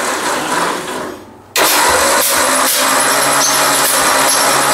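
Ford 800 tractor's four-cylinder engine turned over by its starter with the spark plugs out and the ignition coil unplugged, so it spins freely without firing, with an even beat about three times a second. The cranking dies away about a second in, then starts again half a second later and runs on.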